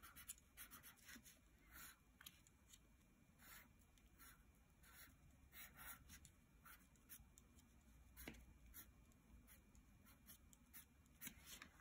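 Faint pencil strokes on paper: short, irregular scratches as the legs and feet are sketched.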